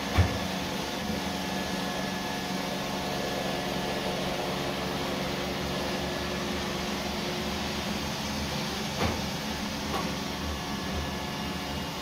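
Robot vacuum cleaner running with a steady motor hum. There is a sharp knock just after the start and a lighter bump about nine seconds in.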